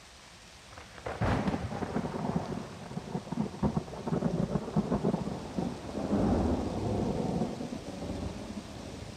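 Thunder over steady rain: a sharp crack about a second in, then a long rolling rumble that slowly fades.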